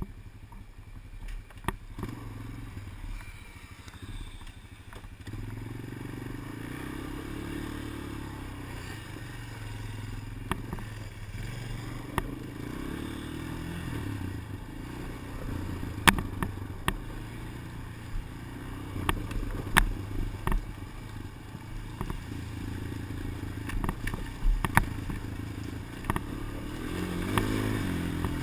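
Motorcycle engine running, its pitch rising and falling with the throttle, as picked up by a GoPro camera. Irregular sharp clicks cut through it every second or two: a clicking fault in the GoPro's audio.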